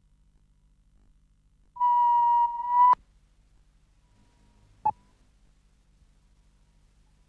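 A steady, mid-pitched electronic beep lasting just over a second that ends in a click, then one short blip about two seconds later, over a faint low electrical hum.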